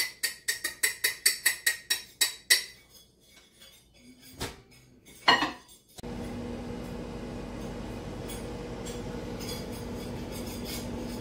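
A fork clinking quickly against the inside of a mug, about five strikes a second, as batter is stirred, then a few knocks. About six seconds in, a microwave oven starts running with a steady hum.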